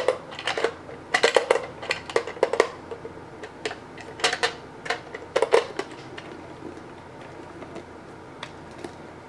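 Hard plastic clicks and knocks as the battery and hull parts of a remote-control racing boat are handled and pressed back into place. Clicks come thick and fast for the first six seconds or so, then only a few faint ticks.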